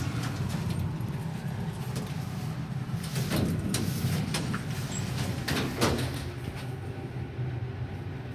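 Montgomery Kone elevator car running, a steady low hum in the cab, with a few clunks and rattles between about three and six seconds in.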